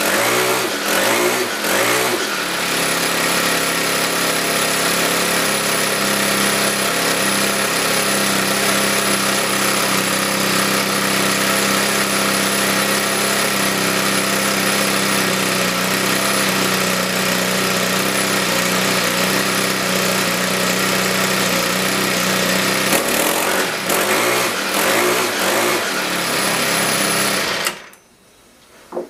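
Craftsman four-stroke string trimmer engine running after a carburetor rebuild and pull-start repair. Its speed rises and falls with the throttle for the first couple of seconds, then holds steady for about twenty seconds, varies again, and cuts off suddenly near the end.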